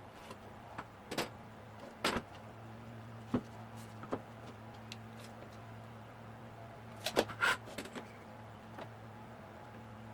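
Scattered light knocks and clicks over a steady low hum, with a quick cluster of louder knocks about seven seconds in.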